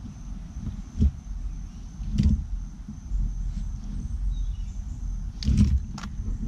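A low rumble with a few sharp knocks: one about a second in, one just after two seconds, and two close together near the end.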